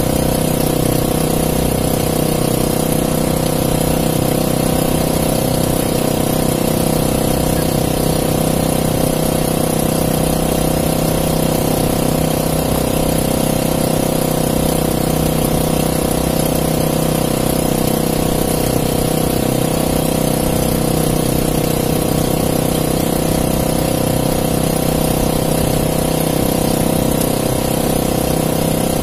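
Small gasoline engine on an outrigger fishing boat idling steadily: a constant, even hum that does not change speed.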